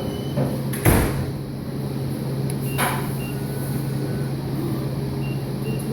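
Vending machine bill acceptor taking in a dollar bill held with tape: a brief mechanical whir about a second in and another near three seconds, over the machine's steady low hum, with several short high electronic beeps.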